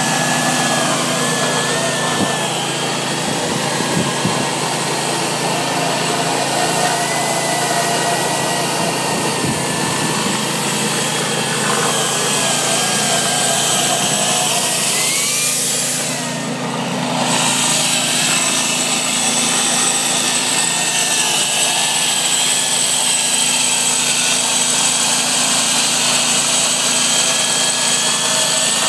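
Electric stone saw running on a guide rail as it cuts a bevel along the edge of a marble slab. The motor whine wavers in pitch under load and eases off briefly about halfway through.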